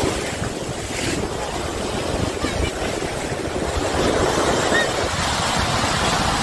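Sea surf washing onto a beach, easing about a second in and building again, with wind buffeting the microphone.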